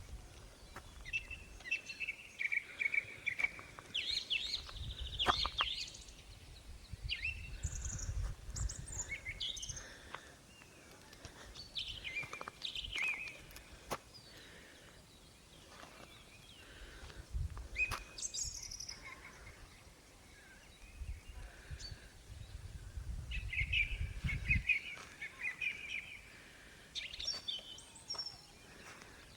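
Several songbirds chirping and trilling, their calls scattered throughout, with bouts of low rumble now and then.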